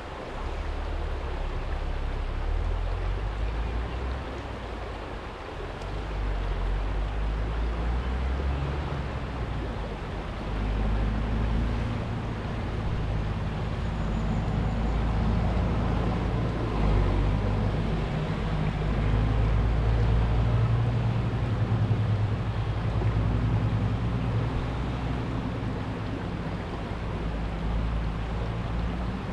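A small stream running over a stony bed, an even rush of water, under a heavy, shifting low rumble that swells and eases over several seconds and is the loudest part of the sound.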